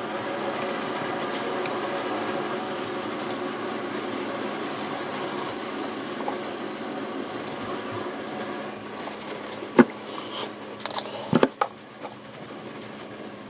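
Disinfectant being sprayed on a makeup brush: a steady hiss for about eight seconds that then fades. A few sharp knocks and clicks of the brush and bottle being handled follow.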